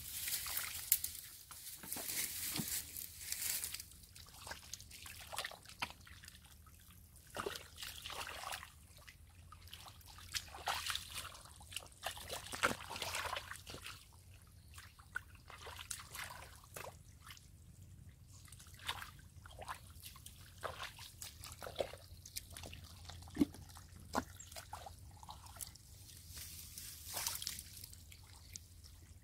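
Wet mud squelching and shallow muddy water sloshing and trickling as hands and feet work through a paddy puddle, in irregular bursts.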